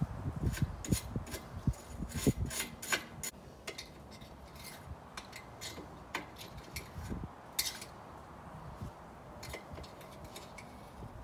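A small metal hand tool scraping and clicking against the aluminum frame of a sliding glass door at its bottom corner: irregular metallic scrapes and taps, busiest in the first three seconds and again briefly past the middle.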